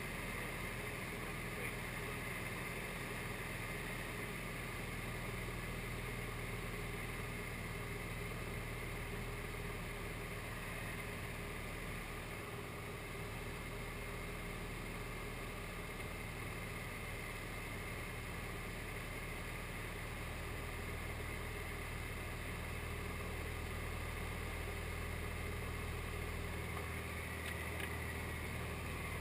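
SD-1 Minisport light aircraft's engine and propeller running steadily in flight, the low engine note shifting slightly about two-thirds of the way through.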